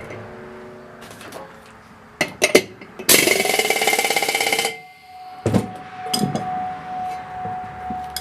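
A couple of metal clicks, then a small motor runs in one loud burst of about a second and a half, its pitch rising as it spins up, and cuts off suddenly. A steady faint tone and a few knocks follow.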